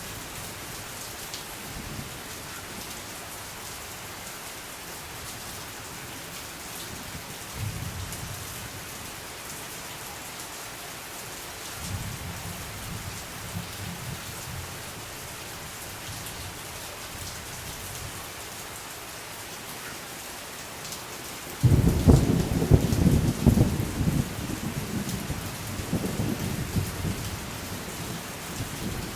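Steady rain falling, with distant thunder rumbling low now and then. About twenty seconds in, a loud thunderclap breaks out suddenly and rolls on.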